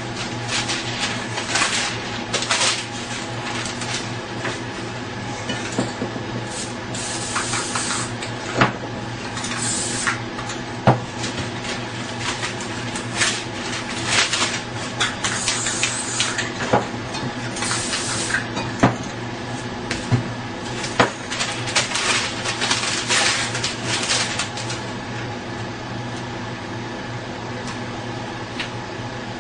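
Spray-paint cans hissing in several short bursts, among many sharp clicks and knocks of cans and paper being handled on a table, over a steady hum. The knocking thins out for the last few seconds.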